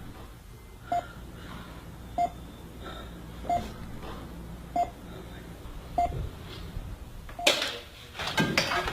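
A short electronic beep repeating steadily about every second and a quarter over a low hum. Near the end a louder, noisy burst of sound cuts in.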